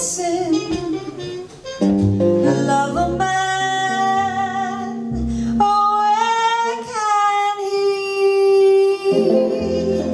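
A female jazz vocalist singing with a small jazz band, accompanied by an archtop guitar and a double bass.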